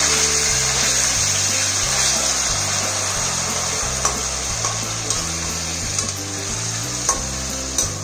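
Yogurt-marinated chicken sizzling steadily as it fries in hot oil and ghee, with a few short clicks in the second half as it is stirred in the pan.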